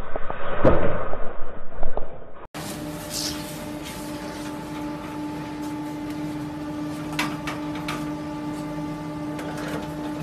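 A snowboard scraping through a wooden shed with a loud thump about a second in, then after a cut a chairlift station's machinery running with a steady hum and a few sharp clicks.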